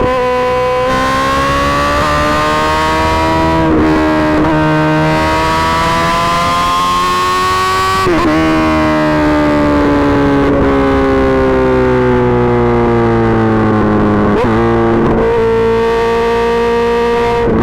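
Suzuki GSX-R1000 inline-four with an M4 GP slip-on exhaust running hard at high revs, a loud steady howl whose pitch slowly climbs and sinks. Several brief breaks drop the pitch for a moment, then it picks up again.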